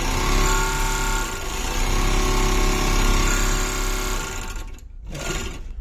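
Four-thread overlock sewing machine running at speed with a steady motor whine, stitching and trimming cloth. It stops near the end, with a brief restart just before the end.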